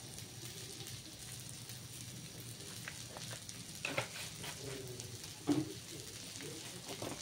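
Cassava leaves frying in a wok with a steady, soft sizzle, with a couple of short knocks about four and five and a half seconds in.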